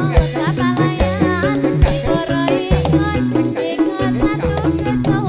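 Live ndolalak dance music: a gliding melody line and bass notes over a steady percussion beat.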